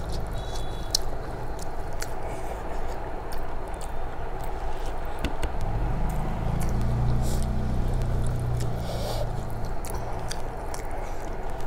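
Fingers squishing and mashing rice on a plate, scraping the plate surface, with short wet clicks of chewing. A steady low hum runs underneath.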